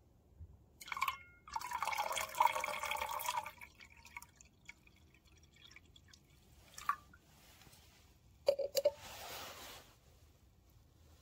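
Liquid poured into a glass beaker of green acid solution, splashing and fizzing. The main pour comes about a second and a half in. Another short spell of knocks and splashing follows near the end.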